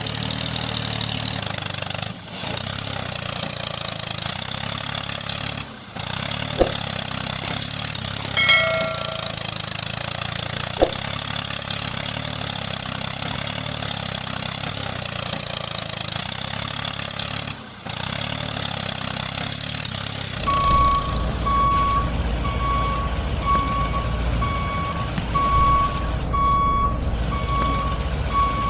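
A vehicle engine runs steadily, broken by a few short cuts. About three-quarters of the way in, a heavier truck engine rumble starts along with a reversing beeper, beeping steadily about one and a half times a second.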